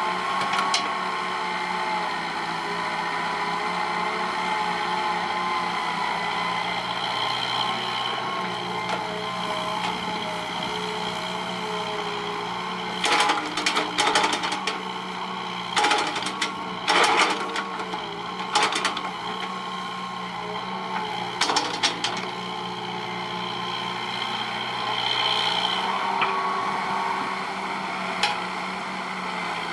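Hitachi EX120 hydraulic excavator's diesel engine running steadily under load as it digs and moves soil, its tones shifting a little as the hydraulics work. Through the middle comes a run of sharp metallic clanks and knocks.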